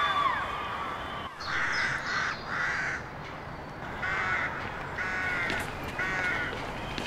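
A crow cawing about five times in short, harsh calls, two close together early on and three more in the second half, over a low steady background hum.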